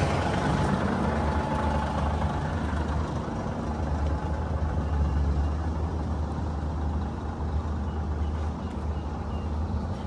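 A vehicle engine running steadily at a low, even pitch.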